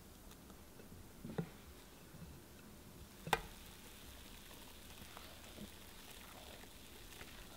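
Thick chocolate sponge batter poured in a stream into a parchment-lined square baking pan, with a soft wet crackling and small plops. Two sharp knocks, the louder one about three seconds in.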